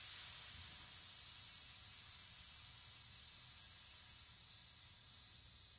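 A man hissing out a long, steady "sss" on a single breath, a singer's breath-support exercise. The breath is a shallow chest breath, so the hiss slowly weakens toward the end and fizzles as the air runs out.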